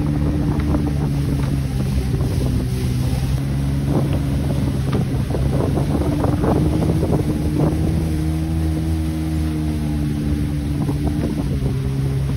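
Jet ski engine running steadily at speed, with water splashing and spraying around the hull and wind on the microphone.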